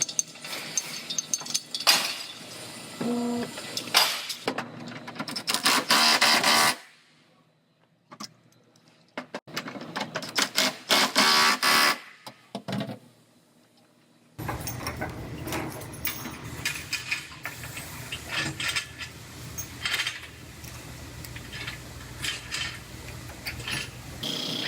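Collision-repair pulling on a car's crushed rear body panel: irregular metal clanks and knocks, broken by two short near-silent gaps. From about halfway a steady low hum runs under scattered clicks.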